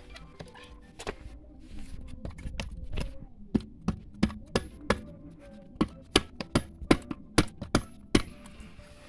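Small hammer tapping a PVC floor-drain fitting down into wet cement: about fifteen sharp light knocks, two or three a second, starting about three and a half seconds in, after some scraping and handling noise.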